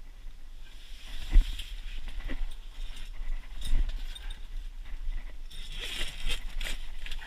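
Handling noise: rustling and scattered knocks as a camera is picked up and moved around inside a fabric ice-fishing shelter, with a sharp thump about a second and a half in and another near four seconds.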